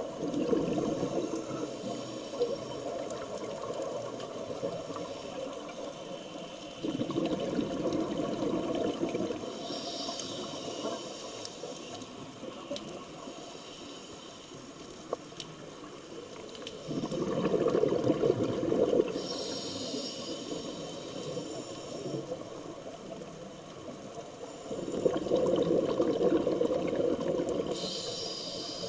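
Scuba diver breathing through a regulator underwater. Slow breaths of bubbly exhalation come about every eight to nine seconds, and a short high hiss from the regulator falls between them.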